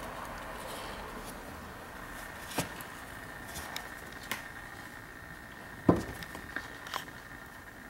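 A few scattered knocks and light bumps over a faint steady hiss, the loudest a dull thump about six seconds in.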